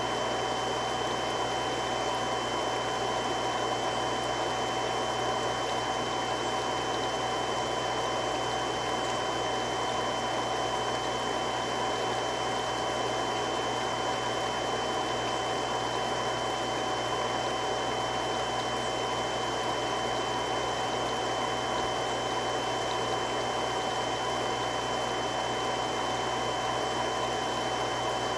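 Three-stage irrigation water pump running steadily, an even rushing noise with a few fixed whining tones over it.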